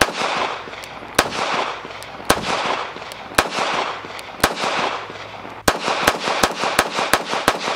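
Browning BDA .380 ACP semi-automatic pistol being fired: a slow string of single shots about one a second, then a quicker run of about five shots near the end, each shot followed by a short echo.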